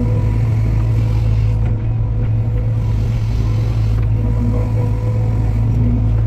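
Engine of a heavy construction machine running at a steady speed: a constant low hum with a faint steady whine above it.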